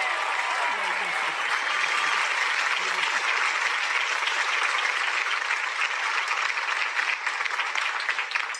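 A large crowd applauding: dense, steady clapping with cheering voices mixed in, strongest in the first couple of seconds. The clapping starts to die away at the very end.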